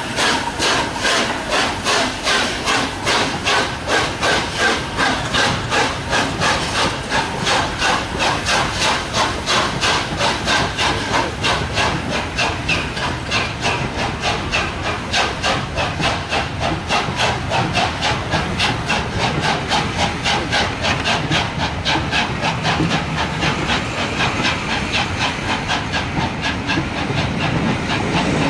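LNER A4 Pacific steam locomotive, a three-cylinder engine, working hard to pull away with a heavy train: rapid, even exhaust beats, about four to five a second, with a wheezing hiss of leaking steam. Near the end the beats fade and the low rumble of the passing coaches grows.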